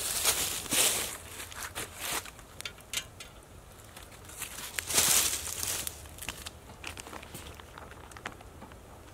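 Dry crinkling and rustling in bursts, loudest near the start and again about five seconds in, over faint scattered crackles of a small wood campfire.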